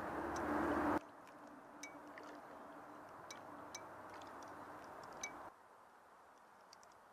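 Faint scattered clicks and small clinks over a low hiss. The hiss is louder with a steady hum for about the first second, then cuts off abruptly.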